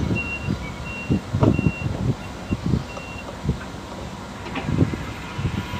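Sakai TS205 pneumatic-tyred road roller's reversing alarm beeping: short high beeps about twice a second that stop a little after three seconds in, over the rumble of the roller's engine running close by.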